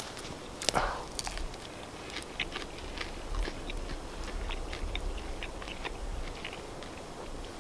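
A person biting and chewing a crunchy, slightly charred flatbread baked in thin layers on a stick over a campfire: a sharper crunch about a second in, then many small irregular crackles of chewing.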